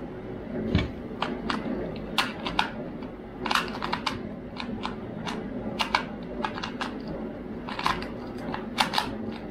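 A 2x2 speed cube turned rapidly by hand: irregular flurries of sharp plastic clicks as the layers snap round, with brief pauses between bursts.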